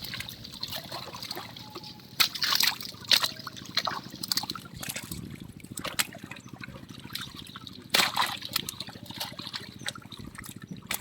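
Pond water splashing and trickling, with irregular sharper splashes about two seconds in and again near eight seconds, as fish thrash in the water during a net haul.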